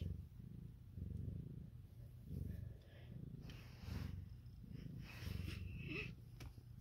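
Domestic cat purring close up, a low steady rumble that swells and eases about once a second.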